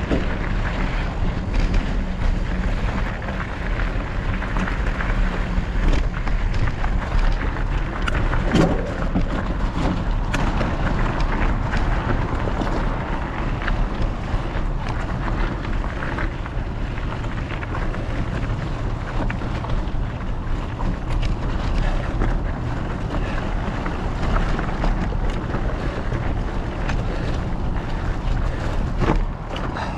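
Wind buffeting an action-camera microphone on a moving mountain bike, with the tyres crunching over a rocky dirt trail and scattered knocks and rattles from the bike and camera mount.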